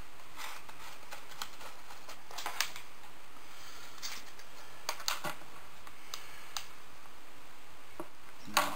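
Scattered light clicks and taps from hands handling a hot glue gun and pressing foam scenery pieces into place, over a steady hiss; the sharpest click comes near the end.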